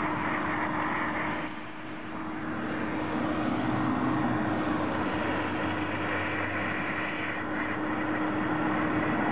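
Steam cleaner wand jetting steam through a round brush head onto concrete: a steady hiss over a constant machine hum, easing off briefly about a second and a half in before coming back up.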